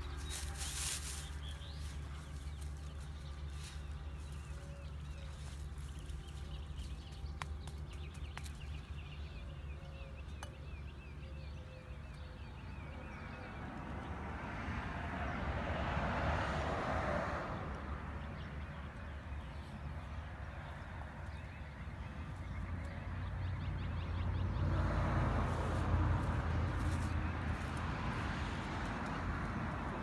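A small hand trowel scraping into dry mulch and soil near the start and again at the very end, over a steady low outdoor rumble. Twice, a long swell of rushing noise rises and fades away.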